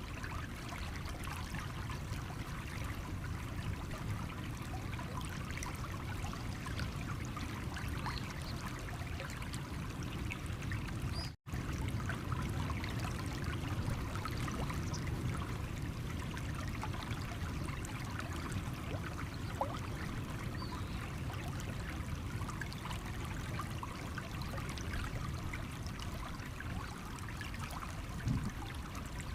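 Small stream trickling and babbling over stones, a steady flow with many small splashes. It drops out for an instant about eleven seconds in.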